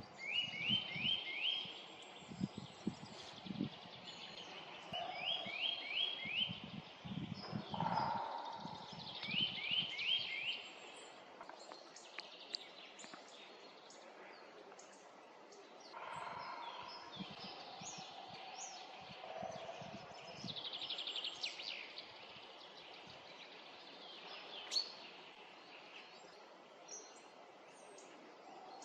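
Small forest birds calling: one bird repeats a short phrase of four or five quick notes three times in the first ten seconds, and other short, higher chirps follow scattered through the rest. Low rumbles come and go in the first eight seconds.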